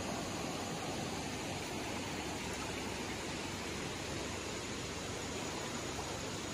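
Creek in flood: fast, muddy water rushing steadily across and around a washed-out dirt road crossing.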